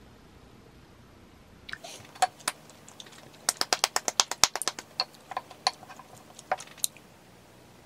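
A quick run of small, sharp hand claps, about ten a second, then a few ringing knocks of a wooden spoon against a ceramic bowl.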